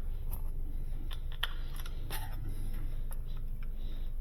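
Scattered light clicks and taps of small plastic parts and screws being handled while a plastic pressure washer housing is screwed back together, over a steady low hum.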